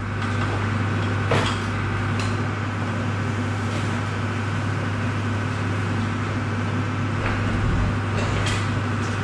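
Steady mechanical hum with a few light knocks and clanks scattered through it.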